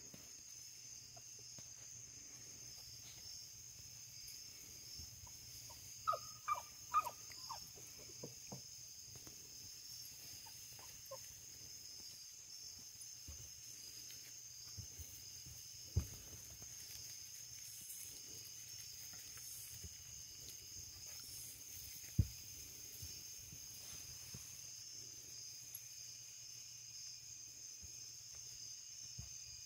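Basset hound puppy giving a quick run of about six short, high whimpers or yips about six seconds in, with a few fainter ones soon after. A steady high-pitched hiss runs underneath, and there are two sharp knocks later on.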